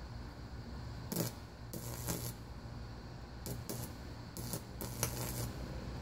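High-voltage arcing on a homemade bug zapper's wire grid: five short crackling bursts over a steady low hum from its high-voltage transformers.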